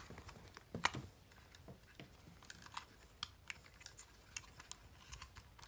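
Faint, irregular small plastic clicks and knocks as a four-AA receiver battery pack is worked out of a tight, greasy battery compartment in an RC truck's chassis.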